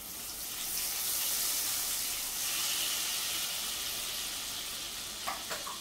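Whole spices sizzling in hot butter and oil in a frying pan. The sizzle swells about a second in, then slowly eases off, with two light clicks near the end.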